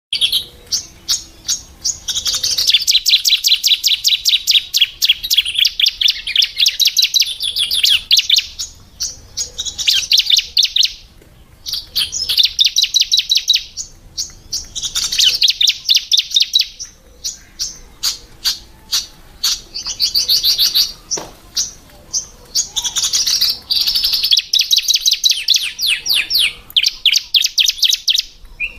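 Female bar-winged prinia (ciblek) chirping: rapid strings of sharp, high chirps in bouts of a few seconds, broken by brief pauses.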